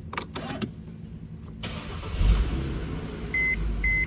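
A Mercedes C-Class being started from the cabin: a few clicks, then about two seconds in the engine cranks and catches with a low rumble and settles into a steady run. Near the end a warning chime starts beeping about twice a second.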